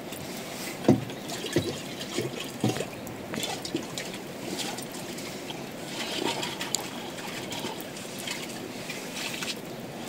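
Water trickling steadily, with a few short knocks in the first three seconds.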